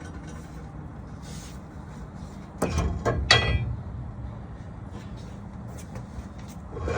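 Metal clanks with a short metallic ring, two close together about three seconds in and a duller one near the end, as an axle shaft is worked out of a GM 10-bolt rear axle housing. A low steady rumble runs underneath.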